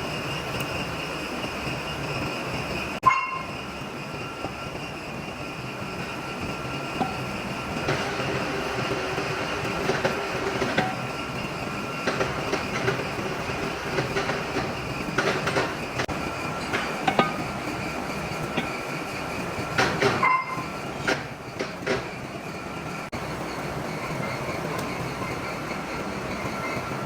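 Machine-shop noise: a metal-cutting machine tool running steadily with a faint whine, and sharp metallic clanks about three seconds in and again near twenty seconds.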